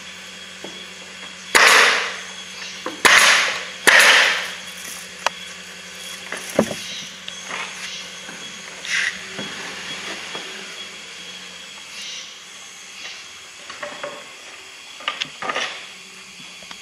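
Pneumatic nail gun firing three shots into a wooden beehive box, starting about a second and a half in, each a sharp bang trailing off in a short hiss of air. Lighter knocks and clatter of the wooden box and boards being handled follow.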